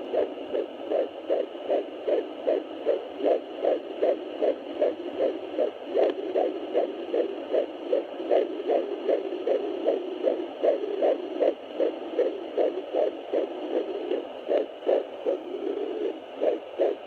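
Fetal heartbeat at 13 weeks of pregnancy, picked up by a Sonoline B handheld fetal Doppler and played through its speaker: fast, steady, evenly spaced pulses, a little over two a second.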